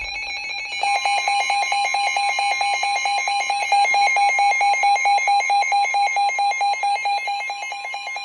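Weather radio sounding a severe thunderstorm warning alert: a fast electronic beeping, about five beeps a second, with the steady warning alarm tone joining about a second in.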